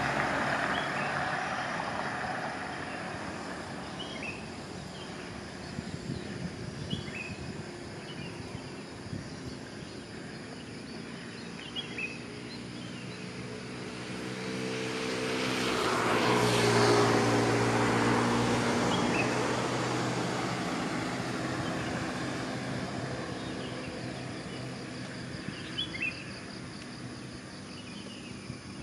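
An engine passing by, mixed into steady outdoor background noise. The noise of an earlier vehicle fades at the start. The engine swells slowly to a peak about halfway through, then fades over several seconds, with faint short chirps scattered throughout.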